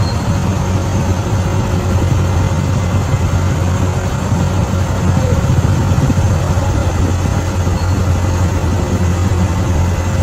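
Heavy diesel engine of a bulldozer running steadily, a deep even hum with no revving or change in pitch.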